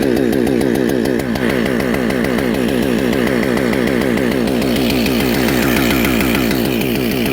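Chainsaw running steadily at high revs, loud and unbroken.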